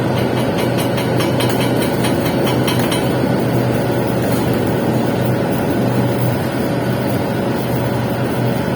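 Electric arc welding a capping pass on pipe: the arc runs as a steady, loud crackling hiss over a low hum, with bursts of sharper crackle about a second in.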